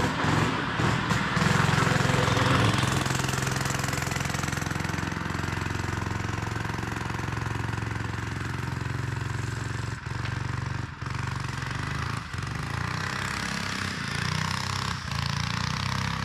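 Small single-cylinder four-stroke engine (a Power Fist 79cc OHV) driving a Kitty Cat snowmobile through snow, running steadily under load and a little louder for the first few seconds. Brief dips in its sound come around ten to twelve seconds in, while the cold engine is finally warming up.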